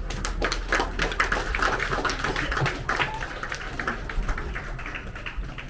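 An audience clapping: a crowd's dense, irregular handclaps that thin out and fade away over a few seconds.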